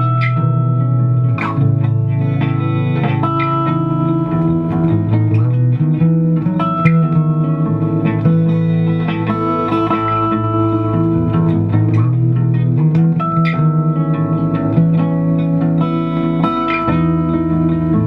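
Four-string acoustic-electric bass guitar plucked fingerstyle, playing low sustained notes together with a repeating guitar riff.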